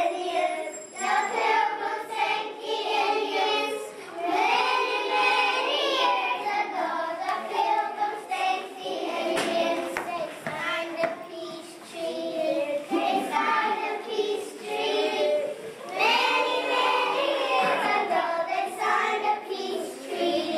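A group of young children singing together in chorus, phrases separated by short breaks.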